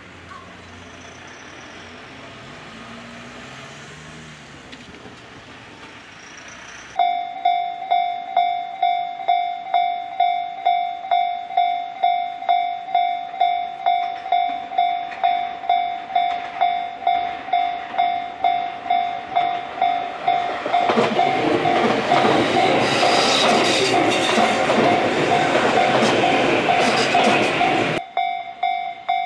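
Japanese level-crossing warning bell starts suddenly about seven seconds in, an electronic ding repeating about twice a second. Later a Tobu electric train runs through the crossing for about seven seconds, its running noise loud over the bell, then stops abruptly near the end while the bell keeps ringing.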